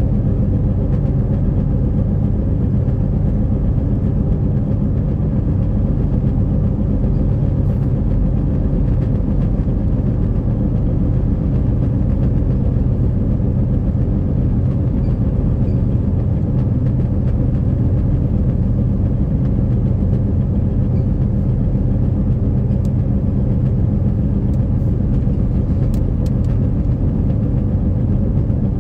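Steady low rumble of a car driving at highway speed, heard from inside the cabin: engine and tyre noise, with no change in pace.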